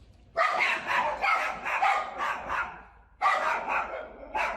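A dog barking rapidly in two runs, the first lasting about two and a half seconds and the second starting a little past three seconds in.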